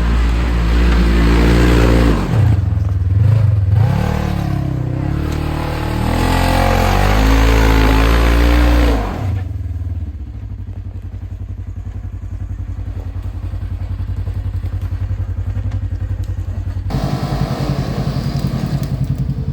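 Polaris RZR 900S side-by-side engine revving, its pitch rising and falling, then dropping about halfway through to a steady, evenly pulsing idle.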